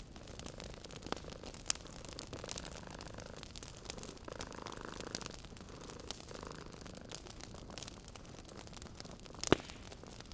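Wood fire crackling in a fireplace: scattered sharp pops and snaps, the loudest about nine and a half seconds in. A cat purrs gently underneath.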